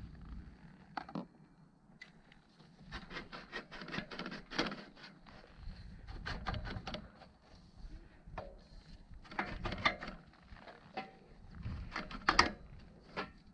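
Irregular scraping and clicking of something being worked and forced through a tight gap by hand, in uneven bunches, with a sharper knock near the end.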